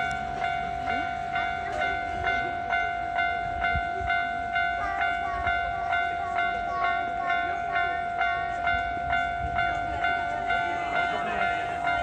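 Japanese railroad-crossing electronic warning bell ringing with its repeated 'kan-kan' strokes, a little under two a second, at an even pace.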